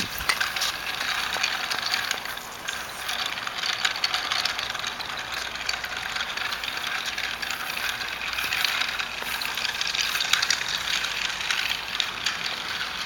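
A pull-along toy dog rattling and clattering as it is dragged along a sidewalk: its wheels roll over the pavement in a steady stream of small clicks.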